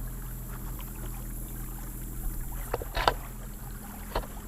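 Boat motor running with a steady low hum, with a few short knocks on the boat about three and four seconds in.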